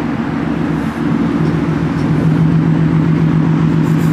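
Car engine running at a steady idle, a low even hum whose pitch steps up slightly about a second and a half in.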